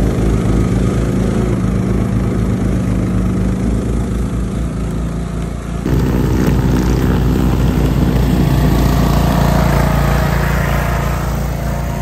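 John Deere garden tractor's engine running steadily while its front-mounted snowblower augers and throws snow. About six seconds in the sound changes abruptly, with more rushing noise from the snow being chewed and thrown.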